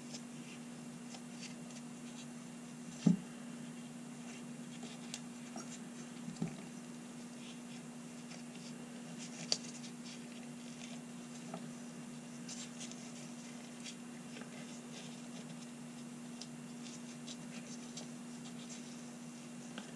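Faint rubbing and scraping of a bluing sponge on small steel revolver parts in gloved hands. There are a few small knocks and clicks as parts are handled and set down, the sharpest about three seconds in, all over a steady low hum.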